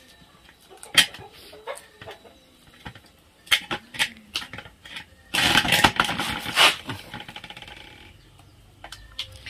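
Wet feathers being pulled from a scalded chicken over a metal basin, with small scattered plucks and rustles. About five seconds in comes a loud raspy burst lasting about a second and a half, the loudest thing here.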